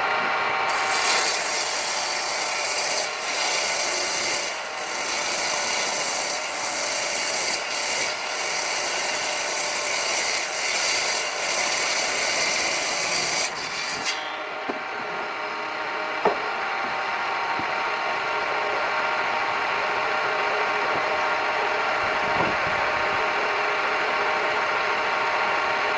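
A rough, continuous scraping or rasping sound over a steady machine hum. The scraping stops about halfway through while the hum carries on.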